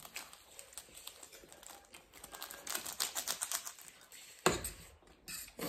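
Small plastic sachets being torn open and shaken out, a quick run of crinkling, crackling clicks, then a sharp knock about four and a half seconds in.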